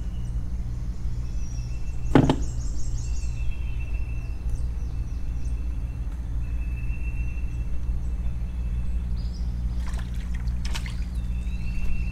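Electric trolling motor humming steadily with an even pulse, with one sharp knock about two seconds in and a few lighter clicks near the end. High thin chirps and whistles come and go over the hum.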